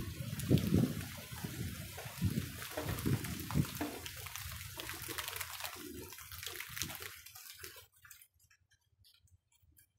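Rain falling and water splashing close by in irregular surges. About eight seconds in it cuts off abruptly, leaving near quiet with scattered light ticks.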